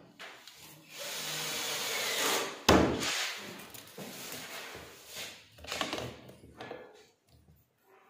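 Hands and a steel tape measure rubbing and scraping over a wooden drawer front, with one sharp knock about three seconds in, then quieter intermittent handling.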